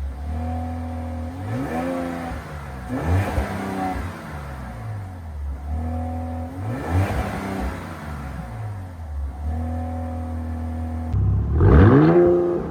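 Car engine with an aftermarket performance exhaust being revved in park from idle, about four times. Each rev climbs in pitch and drops back, and the last rev near the end is the longest and loudest.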